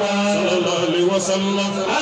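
A man chanting an Islamic devotional melody into a microphone, his voice carried over a steady held low note.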